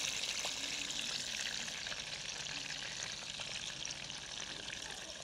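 Tomato slices sizzling in hot oil in a frying pan, a steady hiss full of small crackles that slowly dies down.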